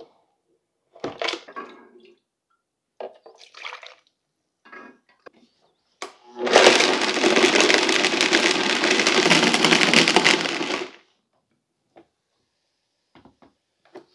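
Vitamix blender running on high for about four and a half seconds, chopping chunks of Mike and Ike candy in kombucha, then stopping. Before it starts there are a few short knocks and scrapes as candy pieces are scraped off a knife into the blender jar and the lid goes on.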